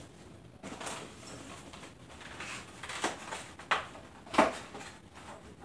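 Kitchen handling sounds: rustling, then three sharp knocks about two-thirds of a second apart, the last the loudest.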